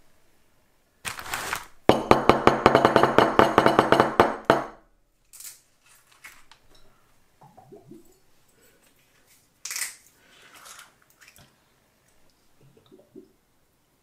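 Loud, rapid crackling and rattling for a few seconds, then rustling and a few light clinks of small glass liqueur bottles being handled.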